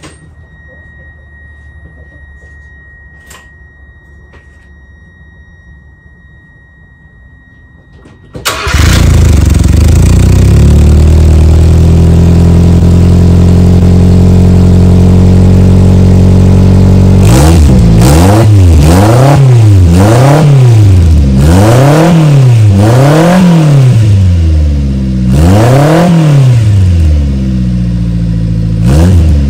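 Subaru Sambar's 660 cc four-cylinder engine started for the first time through its newly fitted custom exhaust and muffler: it catches suddenly about eight seconds in and runs at a high idle that settles lower. From about seventeen seconds in it is revved again and again, the pitch rising and falling about every two seconds.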